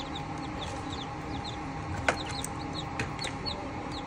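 Newly hatched Golden Misri chicks peeping: a quick run of short, high cheeps, each falling in pitch, over the steady hum of the incubator. One sharp click about two seconds in.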